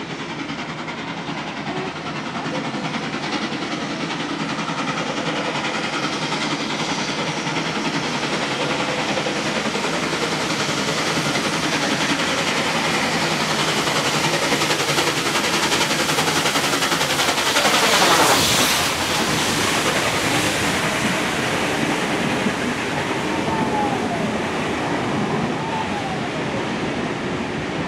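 NSWGR 59 class 2-8-2 steam locomotive 5917 approaching and passing with its train, the sound building steadily to its loudest a little past two-thirds of the way through, then the carriages running by on the rails.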